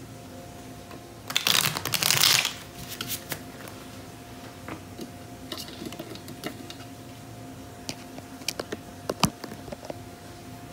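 Tarot deck shuffled, with a dense burst of riffling cards about a second and a half in, then scattered light clicks and taps as the cards are handled and set down on the cloth. A faint steady hum runs underneath.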